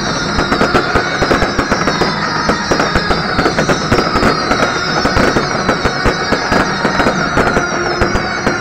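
A fireworks barrage of rapid bangs and crackles in close succession, with high whistles that fall in pitch over and over.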